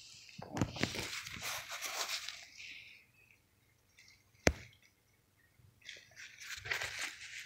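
Rustling of a polyester fabric pouch being handled and turned over, in two spells with a single sharp click between them.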